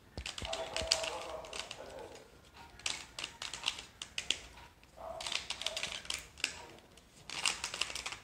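Plastic 3x3 puzzle cube being turned by hand, its layers clicking and clacking in quick runs of turns with short pauses between.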